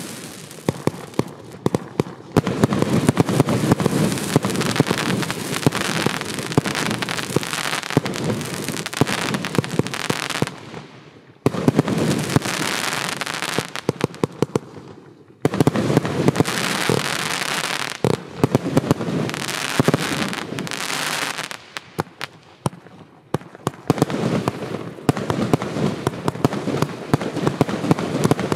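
Consumer (F2) fireworks going off: a dense run of crackling and sharp pops in several stretches, each a few seconds long, breaking off briefly about 11 and 15 seconds in.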